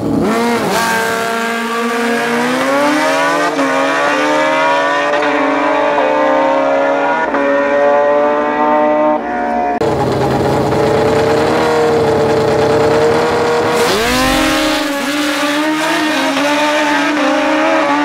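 Race car engine under hard acceleration on a drag strip, its pitch climbing steadily for about ten seconds before cutting off abruptly. A few seconds later another engine sound jumps sharply in pitch and holds high and steady.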